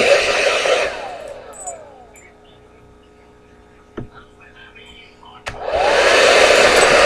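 Hand-held hair dryer blowing, then switched off about a second in and whirring down to a stop. A sharp click sounds in the quiet, then the dryer is switched back on near the end and runs up to full blow.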